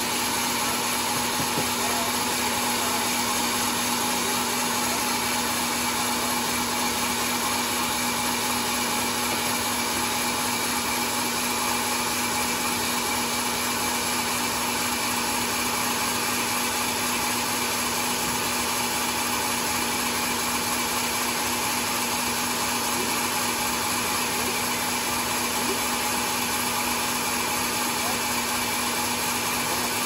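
Band sawmill running steadily as its blade cuts lengthwise through a large mahogany log: a constant loud whir with a steady hum, unchanging throughout.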